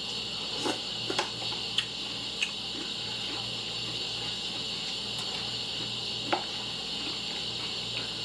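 Eating cereal: a handful of short clicks and crunches, most within the first two and a half seconds and one louder near six seconds, over a steady background hiss and low hum.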